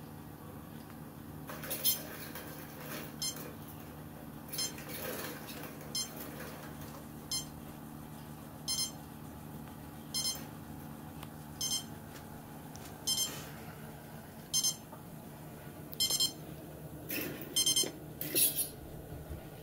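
Short high-pitched squeaks played through a TV's speakers from a video of an electric mousetrap, one about every second and a half, with three quicker ones near the end. A steady low hum runs underneath.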